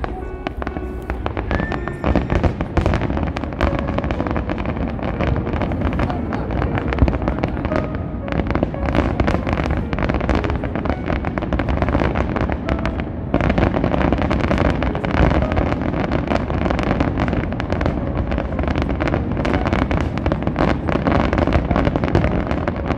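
A fireworks display in a continuous barrage: aerial shells burst in rapid, overlapping bangs and crackles with no pause.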